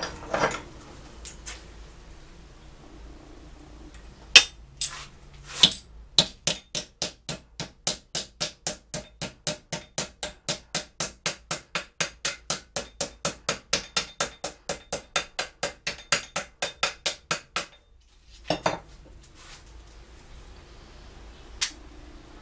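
Hammer blows on a steel punch set in a hole in a steel block clamped in a bench vise: an even run of sharp metal-on-metal strikes, about four a second, starting about six seconds in and lasting roughly eleven seconds. A few separate metal knocks come before and after the run.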